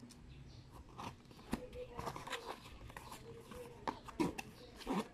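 Toy packaging being handled and opened: irregular clicks, taps and short scrapes of a transparent plastic box and its plastic insert as the figure is taken out.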